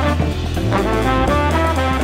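Jazz recording with a horn section playing a melodic line over a steady bass line.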